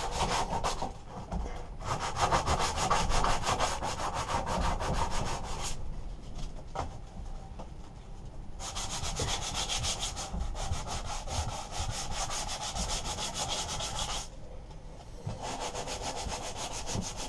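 Sandpaper rubbed back and forth by hand over the painted metal blower housing of a Briggs & Stratton mower engine, fast scratchy strokes with two short pauses, one about six seconds in and one near the end. The old paint is being scuffed rough so that primer will stick.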